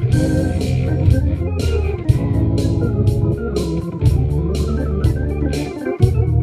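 Instrumental jazz improvisation: held organ-like keyboard chords over a low bass line, with a steady beat of short high strokes.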